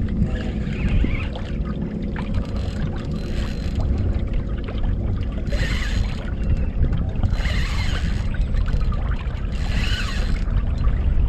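Wind rumbling on the microphone, with five short bursts of splashing water about two seconds apart while a hooked fish is being played from a kayak.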